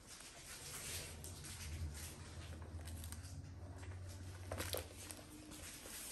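A puppy tussling with a large plush toy: soft rustling and pattering of paws and fabric on a rug and hardwood floor, with a couple of light knocks about four and a half seconds in. A low steady hum runs underneath.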